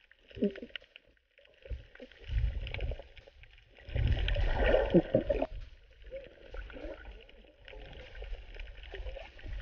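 Muffled underwater sound from a camera below the surface: water rushing and bubbling in uneven surges as a free diver moves about, loudest about halfway through.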